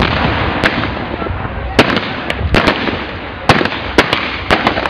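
Mock battle gunfire and pyrotechnic bangs: about a dozen sharp blank shots and bangs at uneven intervals, over a low rumble, with a charge going off right at the start.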